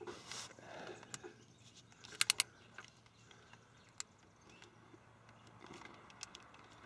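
Hand tool tightening a fitting on an oil cooler setup: a quick cluster of about five sharp metallic clicks about two seconds in and a single click about four seconds in, with faint rustling handling sounds in between.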